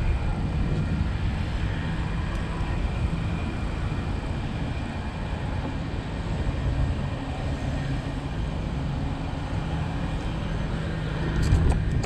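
Bicycle riding along a concrete footpath: steady tyre rumble and wind buffeting the microphone, with a few sharp clicks near the end.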